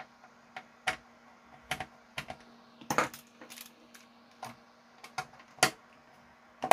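Irregular light clicks and taps of small metal parts being handled, as a small screw is tried in the CD player's metal chassis by hand, over a faint steady hum.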